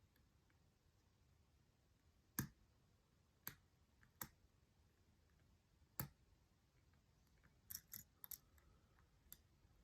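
Sharp metallic clicks of a lock pick and tension wrench working the pin stack of an Abus 83/45 challenge padlock. Four single clicks spaced a second or more apart, then a quick cluster of clicks about eight seconds in.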